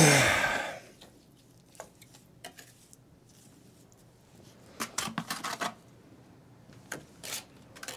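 Steel mason's trowel scraping and tapping mortar into a gap in a brick column: a scrape at the start that fades within a second, a few light taps, then short clusters of scraping strokes about five seconds in and again near seven seconds.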